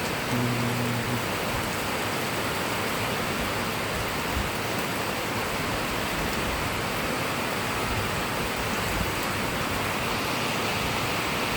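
Heavy rain falling steadily, an even dense hiss. A brief low hum sounds about half a second in.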